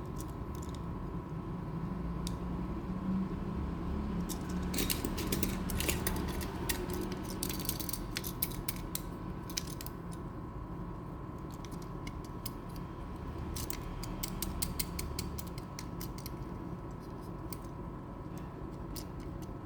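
Small plastic and die-cast toy truck parts being worked by hand: bursts of quick clicking and clattering, over a steady faint hum. The clicks come in two busy spells, the second shorter.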